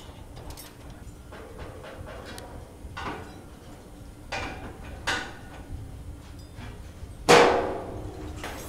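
Metal clanks against the launcher's steel structure: a few light strikes about three, four and five seconds in, then a loud clang near the end that rings on for about a second, over a steady low rumble.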